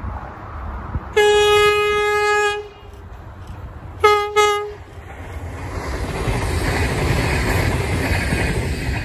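V/Line VLocity diesel multiple unit sounding its horn: one long blast of about a second and a half, then two short blasts. The rumble and rush of the train passing follows.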